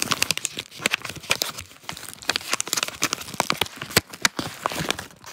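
Paper or cardboard packaging with clear tape being torn open and handled: a dense run of crackling, crinkling and sharp clicks.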